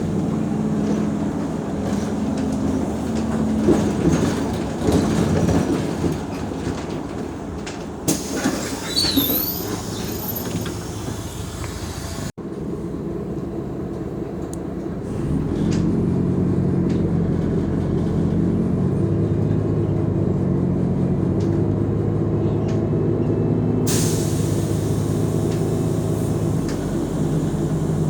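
Mercedes-Benz O345 Conecto G articulated bus under way: engine running under rumbling road noise, with a short high squeal about nine seconds in. After a brief cut the engine tone grows stronger and steadies, and a hiss comes in near the end.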